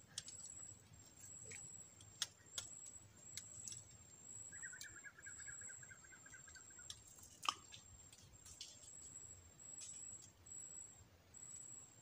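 Faint swamp ambience: a high, thin insect buzz pulsing on and off, and a bird's rapid trill lasting about two seconds from roughly four and a half seconds in. Scattered light clicks and knocks come from handling fishing rods and a reel in a wooden boat, the sharpest about seven and a half seconds in.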